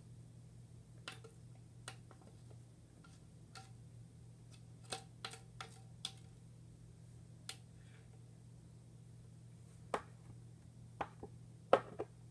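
Scattered sharp clicks and taps of a plastic mixing stick against a plastic container as leftover glue is scraped out, the loudest a few near the end.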